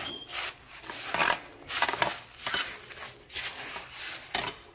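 Crushed cookie crumbs and melted butter being stirred and scraped in a bowl: repeated gritty scraping strokes, about two a second.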